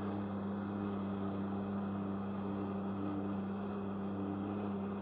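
Jet ski engine running steadily under throttle at an even pitch, pumping water up the hose to a flyboard in flight.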